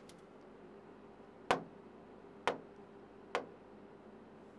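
Fingertip taps on an interactive touchscreen display, four short sharp ticks about a second apart over faint room tone.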